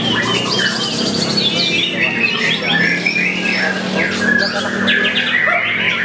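White-rumped shamas (murai batu) singing: a dense, unbroken run of fast, varied whistled phrases and trills, several birds' songs overlapping.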